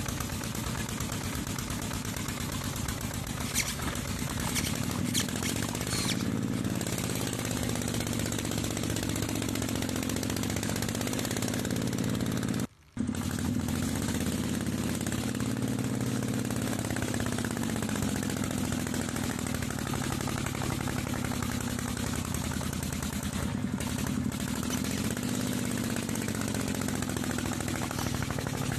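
Miniature model công nông (two-wheel tractor) running under load with a steady chugging drone, its pitch wavering as it strains to haul a heavy log-laden trailer through mud. The sound cuts out for a split second about halfway through.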